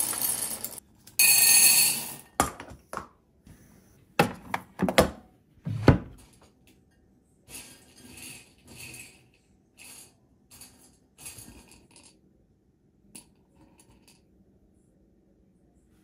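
Kitchen handling sounds: a short loud rustle about a second in, then a few sharp knocks and clinks of dishes, pots and utensils, growing fainter and sparser before going quiet near the end.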